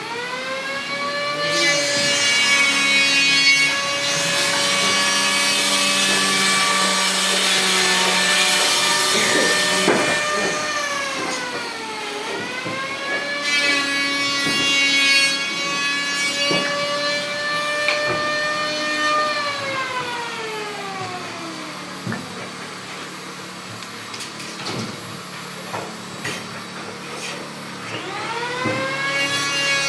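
An electric woodworking power tool, a saw or planer kind, spins up to a steady high whine at the start. Its pitch sags briefly about twelve seconds in as it cuts into wood, then it winds down about two-thirds of the way through. Scattered knocks follow before the motor spins up again near the end.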